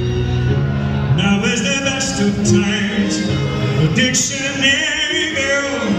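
Live pop song with string accompaniment: held low notes under a man singing with vibrato, the voice coming in about a second in.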